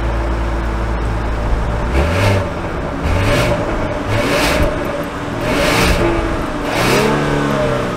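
Genesis G80's turbocharged engine running, heard from outside near the exhaust, with a few short rises and falls in revs as the throttle is blipped.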